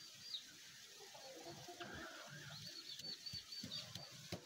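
Faint bird chirps: a short high chirp, then a quick run of high repeated chirps about three seconds in.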